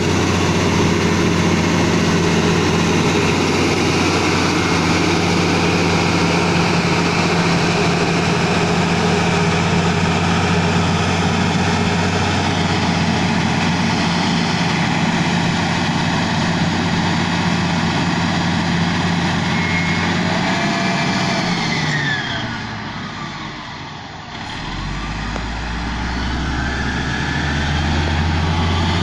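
Komatsu GD555 motor grader's diesel engine running steadily. About three-quarters of the way through its pitch drops and the sound fades for a couple of seconds, then a deeper engine note builds again.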